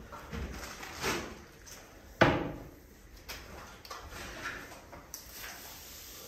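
Straw broom brushing dust off a plaster wall, with several knocks and bumps. A sharp knock about two seconds in is the loudest.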